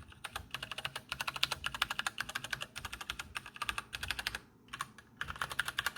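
Keychron K8 tenkeyless mechanical keyboard with Gateron Brown tactile switches, its keys pressed in rapid runs of clicks, with a short pause about four and a half seconds in before the clicking resumes.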